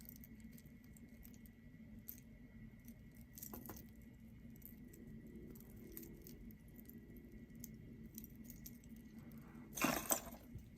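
Costume jewelry pieces handled and sorted, faintly clinking and rattling against each other in scattered small clicks, with a louder clatter near the end.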